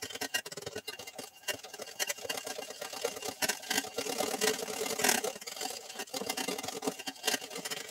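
Hand wire balloon whisk beating a creamy butter, sugar, egg-yolk and coffee batter in a plastic bowl: fast, continuous scraping and clicking of the wires against the bowl.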